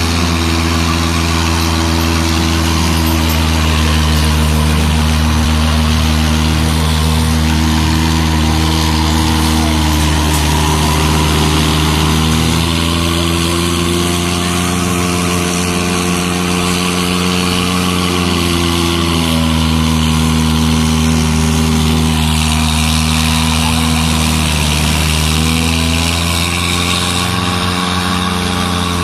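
Cars doing burnouts: engines held at steady revs while the drive wheels spin on the tarmac, with a dense tyre hiss over the engine note. The revs shift down and back up a few times.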